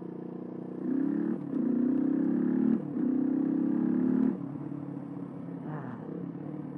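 Suzuki DR125 dual-sport's single-cylinder four-stroke engine accelerating under way. The revs climb about a second in, break briefly twice as gears are changed, then ease off to a steady, quieter run a little past four seconds.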